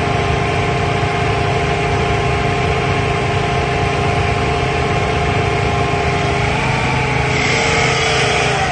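Tractor engine running steadily under load while it drives a PTO dynamometer, with a steady whining note. About six and a half seconds in, the pitch steps up slightly.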